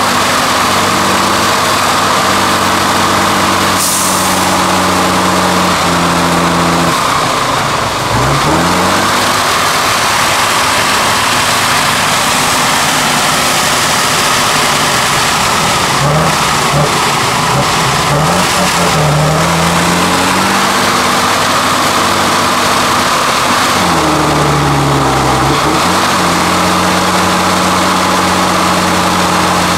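Tatra 813 8x8 truck's V12 diesel engine running hard under heavy load in deep mud. The revs hold high, then fall and climb again several times.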